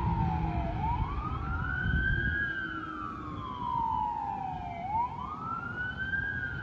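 Fire apparatus siren wailing, its pitch sweeping slowly up and down: up about a second in, down over a few seconds, and up again near the end. A low rumble lies under it for the first couple of seconds.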